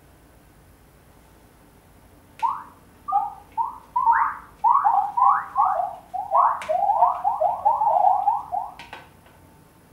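Synthetic squeaky chirps, each rising in pitch, set off by the strokes of sensor-equipped salad servers tossing salad in a bowl. About two dozen come, starting about two and a half seconds in and getting faster, with a few sharp clicks among them.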